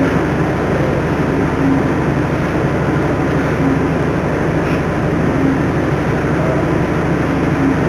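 A steady, even noise with a low hum underneath, unbroken throughout and with no speech.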